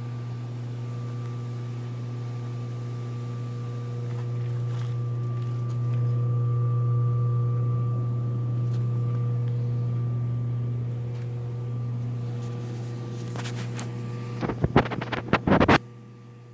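Sundance spa pump motor running with a steady hum, after being remounted on a frame stiffened with metal bracing to cure its loud noise. Near the end there is a quick run of sharp knocks, then the hum cuts off abruptly.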